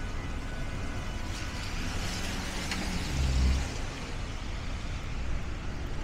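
City street traffic on wet roads: a steady hiss of tyres and engine noise, with a heavier vehicle's low rumble swelling about three seconds in.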